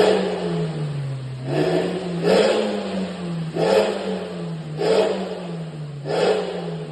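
Motorcycle engine running through an aftermarket big oval Suos exhaust, blipped on the throttle about once a second, each blip a short rise in pitch and loudness before it drops back to idle. The exhaust is built for a deep, wet snoring note with no whistle or howl.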